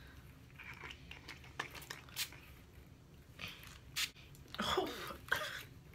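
Plastic pump spray bottle of hair detangling product being handled and spritzed: a few short, sharp puffs, the strongest about four seconds in, with sniffing between them as the scent is smelled.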